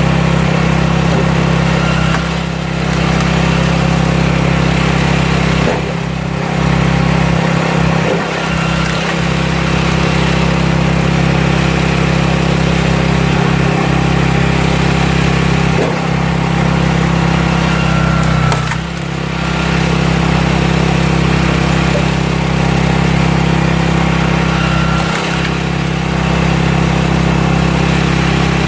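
Small engine of a walk-behind cultivator running steadily while powering a firewood splitter, its level dipping briefly several times.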